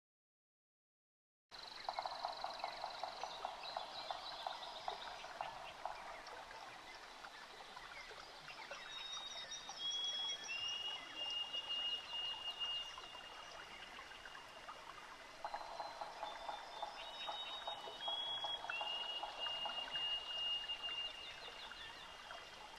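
Outdoor bush ambience: birds giving long, steady whistled notes that step in pitch, over many rapid clicking calls from frogs or insects. It starts abruptly after a second and a half of silence.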